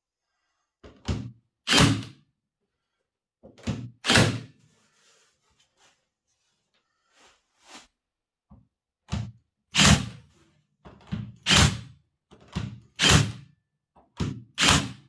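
Cordless Makita pin nailer firing pins to fix a timber strip to a cabinet: about a dozen sharp clacks, mostly in pairs about half a second apart.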